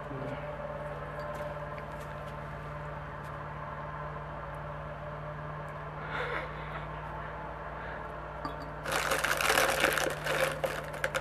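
Dry rustling and crinkling for about two seconds near the end, as hands handle something dry. A steady low hum runs underneath, with a brief faint rustle about six seconds in.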